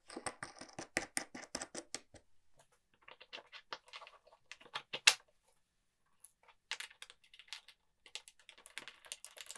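Hand assembly of a plywood jig: rapid irregular small clicks and rattles of T-bolts, washers and plastic star knobs being fitted and the plywood pieces being handled, with one sharper knock about five seconds in.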